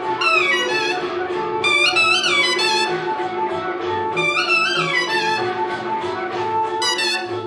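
Suona (Chinese double-reed horn) playing a lively folk melody with repeated swooping slides and bent notes, imitating voices in a joking call-and-response. A steady lower note holds underneath.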